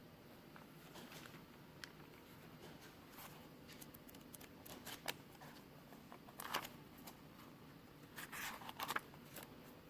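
Faint room tone with scattered small clicks and a few short rustles, the loudest about two-thirds of the way through and near the end.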